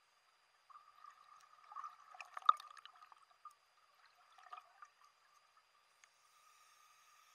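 Muffled underwater sound through a camera housing: a scuba diver's exhaled bubbles gurgling for about three seconds, with one sharp click in the middle, then a shorter gurgle a little later.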